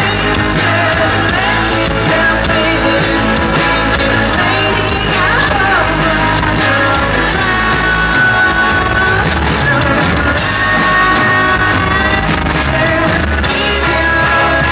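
Live rock band playing: drum kit with cymbals and electric guitar, with a sung vocal over the top.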